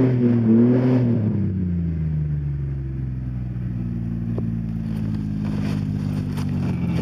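Ford Explorer SUV engine revving under load on a steep dirt climb: the revs rise over the first second, then ease off and hold steady at a lower pitch. Faint crackling sounds come in near the end.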